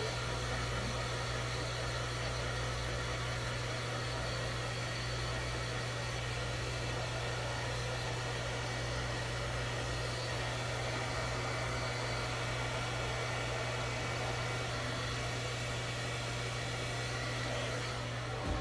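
Blow dryer running steadily: a constant motor hum under an even rush of air.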